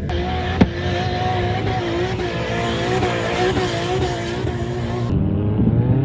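Off-road car engine revving hard, its pitch wavering up and down, with a dense hiss of spinning tyres for most of the stretch. There is one sharp click about half a second in.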